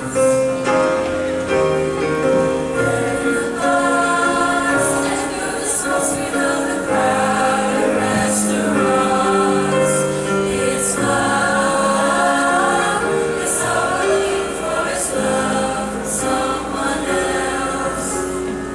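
A mixed high school choir singing in sustained harmony, accompanied by a grand piano.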